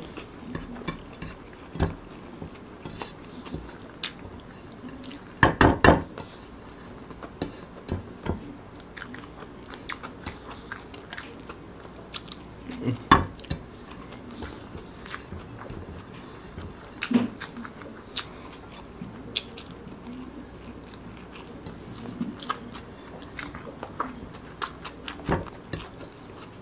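Close-miked eating sounds: a person chewing mouthfuls of rice eaten by hand, with irregular wet smacks and sharp clicks. A louder cluster of clicks comes about six seconds in, and another near thirteen seconds in.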